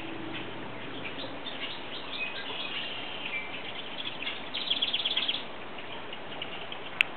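Small birds chirping in the background, with a quick trill about two-thirds of the way through, over a steady outdoor hiss. A sharp click near the end.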